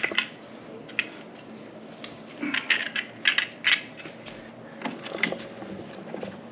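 Clicks and clatter of small hard parts and tools being handled and set down, in several short clusters.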